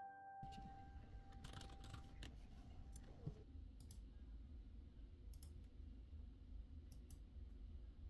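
Faint, scattered clicks of a computer mouse over a low steady hum, a few seconds apart, while a last piano note fades out in the first three seconds.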